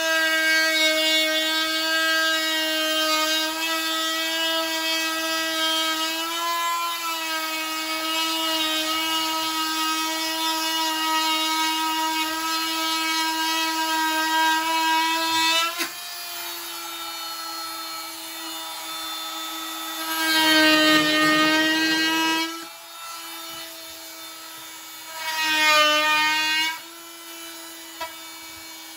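Small corded power tool cutting into the countertop edge, its motor running with a steady high whine. About 16 seconds in the cutting eases off while the motor keeps running. The tool then bites in again twice in short, louder spells.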